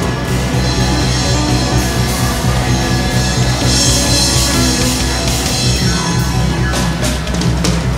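Live jazz combo playing: two alto saxophones out front over piano, upright double bass, electric guitar and drum kit, with a run of sharp drum and cymbal hits in the last two seconds.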